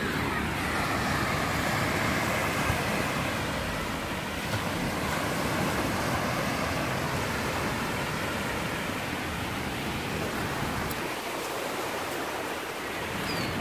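Steady rushing noise of small waves breaking on a lake shore, with a low rumble that eases briefly near the end.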